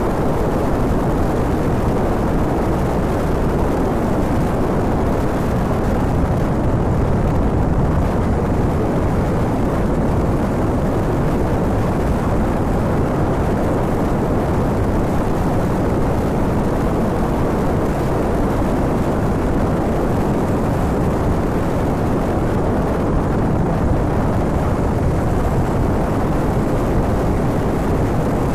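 Honda VTR250 V-twin motorcycle running at a steady cruising speed, its engine mixed with heavy wind buffeting on a phone microphone mounted on the handlebar. The sound stays steady throughout, with no gear changes or revving standing out.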